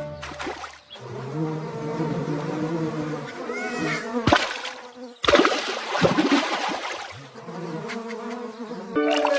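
A steady buzzing drone in two long stretches, broken by short sharp noisy bursts about four and five seconds in.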